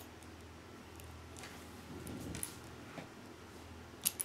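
Small plastic Lego pieces clicking and rustling as they are handled and pressed together, a few light clicks with the sharpest snap near the end, over a faint low hum.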